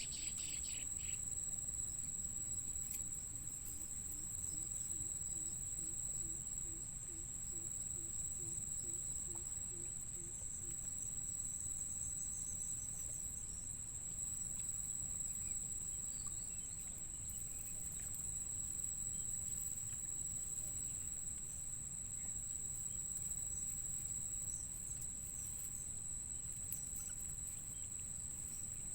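Insects calling with one steady, unbroken high-pitched trill, over a faint low rumble of outdoor background.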